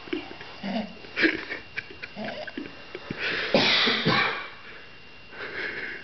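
Loud snoring: a few short snorts and sniffs, then one long, loud snoring breath about three seconds in, and a softer breath near the end.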